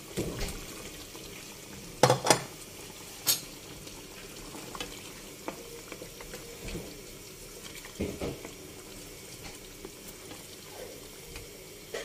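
Thick chicken curry simmering in a pan as boiled potato chunks are tipped in and stirred with a wooden spatula. A few sharp knocks against the pan come about two and three seconds in, and again near eight seconds.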